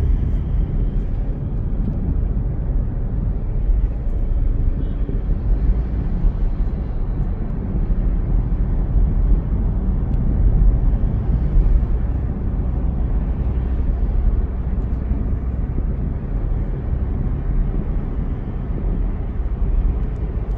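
A car driving along a road: a steady low rumble of engine and tyre noise with no sharp events.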